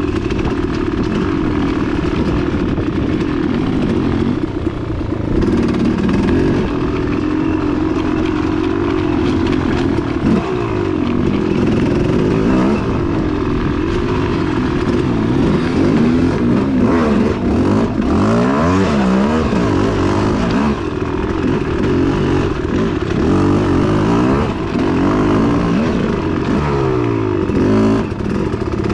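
Dirt bike engine under way on a wooded trail, its pitch rising and falling over and over as the throttle is opened and closed.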